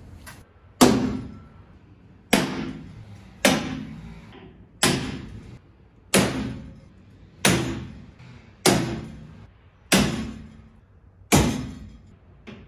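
Hammer striking a center punch against a bare-steel corner guard clamped to the Jeep body, nine sharp blows about one every 1.3 seconds, each ringing briefly. Each blow marks a mounting hole so the drill bit will stay centred.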